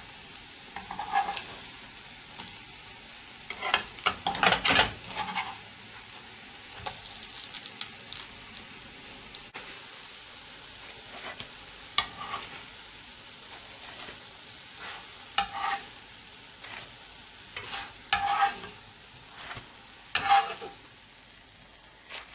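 Pancakes sizzling in hot oil in a frying pan, a steady hiss, with the scrape and clack of a plastic spatula against the pan as they are flipped and lifted out, a cluster of them about four seconds in and single ones every few seconds later.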